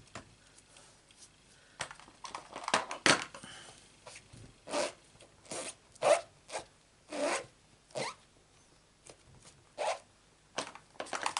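Card stock being cut by hand: about a dozen short scraping cuts at an uneven pace, with pauses between them.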